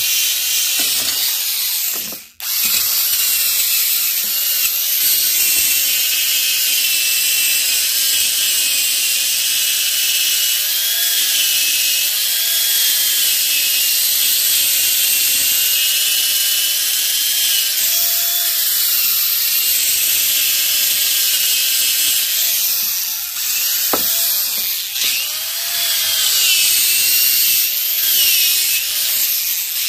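A 1950s electric drill spinning a wire wheel against an aluminium lawnmower cylinder head, scrubbing off baked-on carbon. The motor's whine wavers up and down in pitch as the wheel is pressed harder or eased off, with a steady scratchy brushing over it; the drill stops briefly about two seconds in, then runs on.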